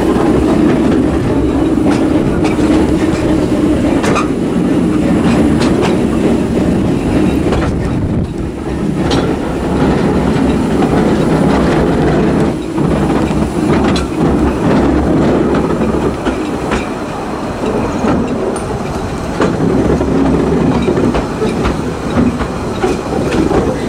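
Narrow-gauge (2 ft 3 in) railway train running along the track: a steady rumble of the carriages with occasional clicks from the wheels.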